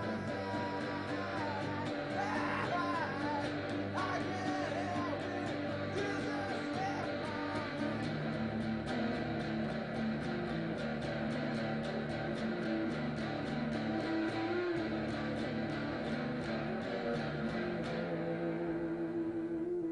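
Layered music with guitar and a wavering, voice-like melody over sustained tones, with a steady beat of faint clicks.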